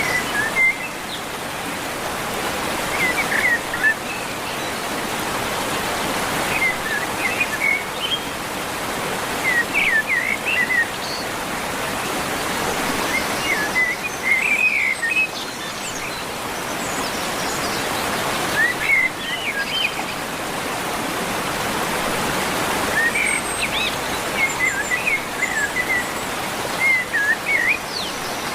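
A songbird singing short, quick warbling phrases every few seconds over a steady rushing background noise.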